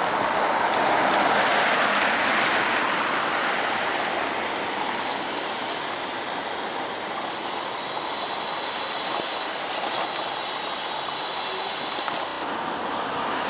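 Steady rushing road-vehicle noise, loudest in the first few seconds. A faint high whine joins it in the second half and cuts off suddenly near the end.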